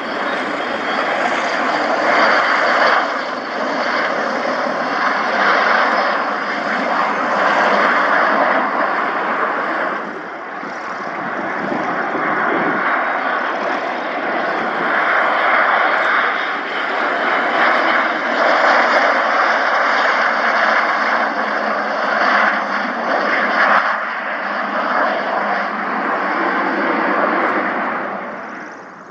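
Airplane engine running loud and close, a dense rushing noise that swells and eases over the seconds, then drops away sharply near the end.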